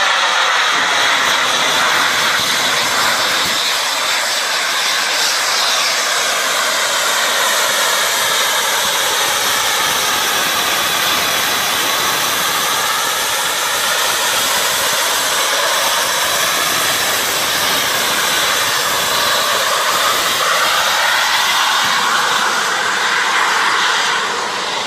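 Zapata Flyboard Air's small kerosene-burning jet turbines running in flight: a loud, steady jet whoosh whose tone slowly sweeps up and down as the machine moves.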